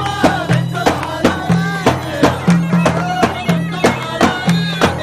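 Music with a steady beat, repeating bass notes and a melody line that bends up and down in pitch, in a traditional, folk-like style.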